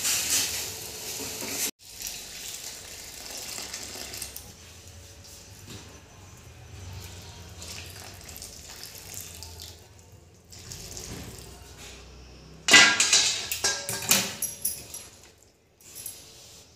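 Hot ghee with ajwain sizzling in a metal pan, cut off sharply after a second or two. Then the hot ghee is poured into a bowl of rice flour and stirred with a wooden spatula, with a sudden louder spell of sizzling and scraping about three-quarters of the way through that dies away over a couple of seconds.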